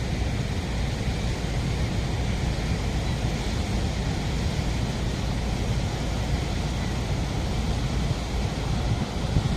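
Steady roar of a large waterfall's falling water, with wind buffeting the microphone in the low end.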